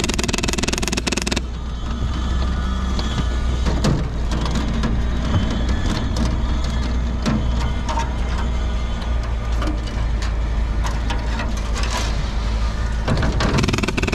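A vehicle's engine running with a steady low rumble, heard from inside the vehicle, with scattered knocks and rattles from the body.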